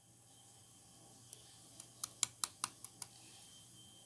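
Slime being played with by hand, making a run of sharp clicks: two light ones, then six quick ones at about five a second, starting about two seconds in.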